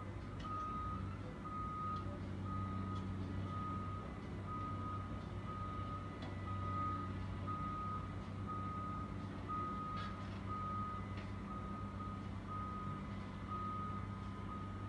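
Back-up alarm on heavy construction equipment beeping steadily about once a second, over a diesel engine running, with a few faint knocks.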